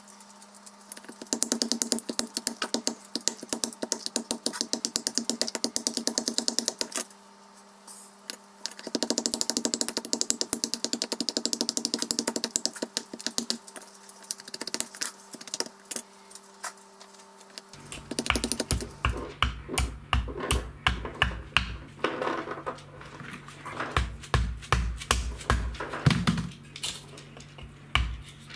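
A birch spoon blank being worked by hand with a large flat-bladed knife over a wooden stump. There are two long runs of rapid clicking scrapes, then from about two-thirds in a series of separate heavier knocks as the blade chops down into the wood against the stump.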